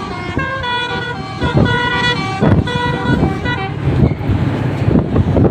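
Bus 'telolet' horn, a set of multi-tone musical air horns, playing a quick tune of stepping notes for about three and a half seconds. Then the horn stops and the rushing noise of passing traffic and wind takes over.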